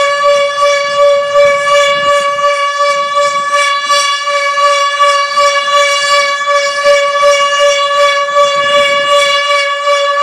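Outdoor warning siren holding one steady, unchanging pitch, its loudness wavering up and down.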